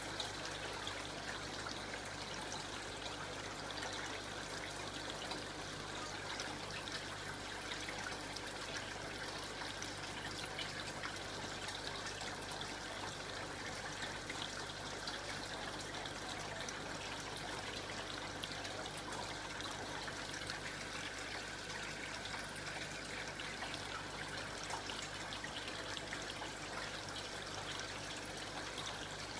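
Aquarium water trickling steadily, with a low steady hum underneath.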